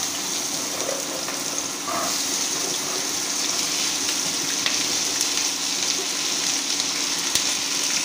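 Cut vegetables (cauliflower, peas, carrot) sizzling in hot oil in a steel kadai just after being tipped in: a steady frying hiss with a few faint ticks.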